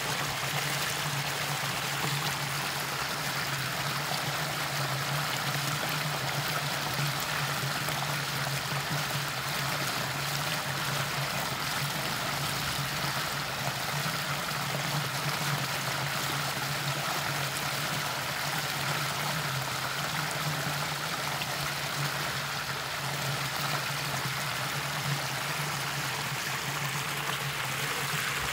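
Muddy floodwater pouring steadily over a concrete lip into a drain, a continuous rushing splash of water flowing freely down the channel.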